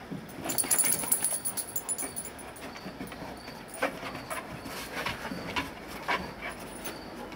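Two Newfoundland dogs play-fighting: irregular short dog noises and scuffling, loudest and busiest about a second in, then scattered sharper bursts.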